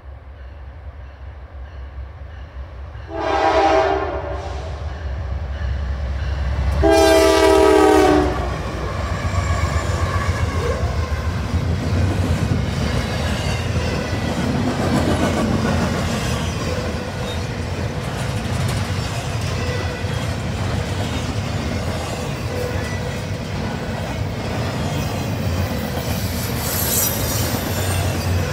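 Norfolk Southern 9917's locomotive horn sounds two blasts as the train approaches, a short one about three seconds in and a longer one a few seconds later. The rumble grows as the engine nears, then double-stack intermodal cars roll past with a steady rumble and the clatter of wheels on the rails.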